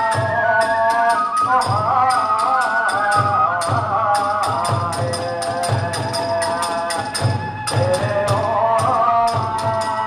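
Kagura hayashi ensemble playing: a big drum beating steadily, hand cymbals clashing quickly, and a bamboo transverse flute carrying a wavering melody over them.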